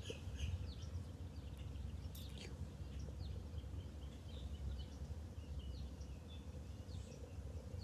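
Faint outdoor ambience: scattered short bird chirps over a steady low rumble.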